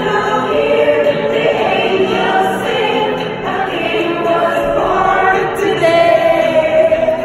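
A group of children singing a song together as a choir, their voices held on long sung notes.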